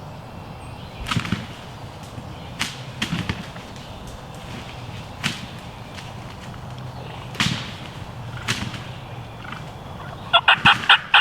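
Wild turkey gobbler gobbling at close range near the end: a fast, rattling burst of notes. Before it come several scattered sharp pops.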